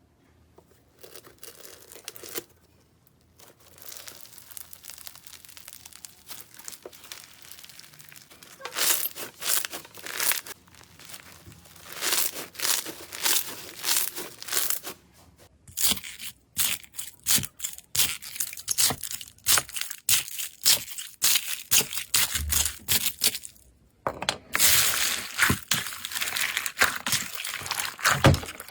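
Slime being squeezed and pressed by hand, giving runs of sticky crackles and pops in bursts. The crackling grows louder and denser after the first several seconds, with a short break about 24 seconds in.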